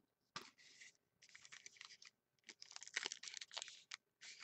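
Faint scratchy rustling in a few short spells: trading cards sliding and rubbing against one another as they are handled.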